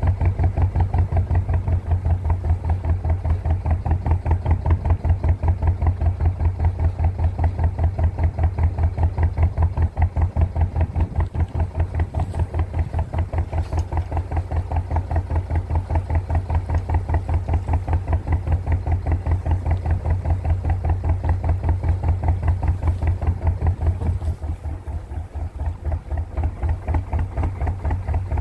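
Ruston 2YD two-cylinder diesel engine of a narrowboat running under way, a steady rhythmic chugging beat. About 24 seconds in it eases back and gets quieter.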